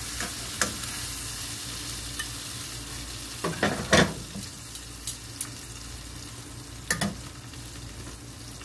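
Chicken thighs in hot coconut oil sizzling steadily in a stainless steel saucepan as they are lifted out with metal tongs. A few sharp clinks of the tongs and a ceramic dish cut through, the loudest about four seconds in and another near seven seconds.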